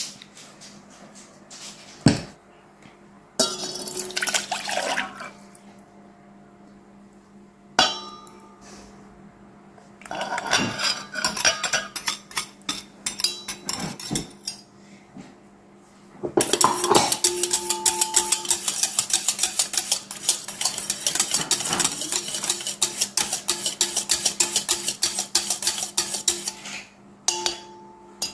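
Scattered clinks and scrapes of utensils in a stainless steel bowl, then, a little past halfway, a wire whisk beating fast and steadily against the inside of the steel bowl for about ten seconds, whisking eggs into buttermilk and melted butter.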